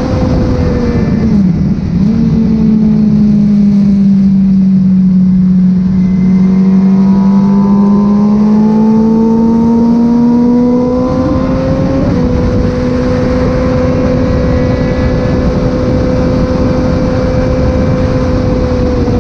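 Freshly rebuilt Kawasaki ZX636 inline-four engine running at moderate revs on track while being run in. There is a quick dip and recovery in the engine note early on, a slow sag and climb back in pitch, then a brief step about two-thirds through before it holds steady, with wind rush mixed in.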